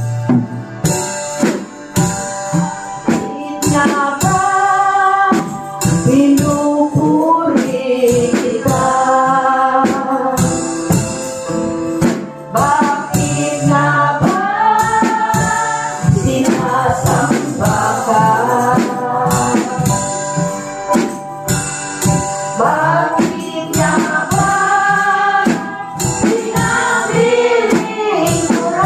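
Tagalog praise and worship song played live: a woman sings lead with backing singers over a drum kit, its drums and cymbals keeping a steady beat.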